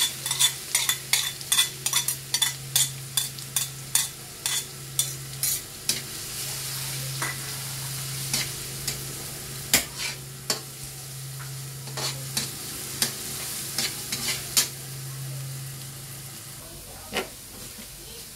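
Minced garlic sizzling in hot oil in a wok, frying toward golden brown, while a metal slotted spatula stirs it with sharp clicks and scrapes against the pan: rapid for the first six seconds or so, then more spaced out. A steady low hum runs underneath.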